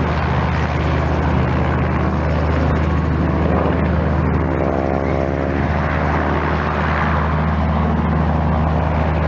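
Propeller airplane engines droning steadily, with one plane's engine note shifting in pitch around the middle as it passes.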